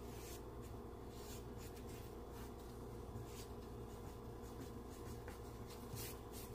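Charcoal sketching on drawing paper: short, irregular scratching strokes, about one or two a second, over a steady low hum.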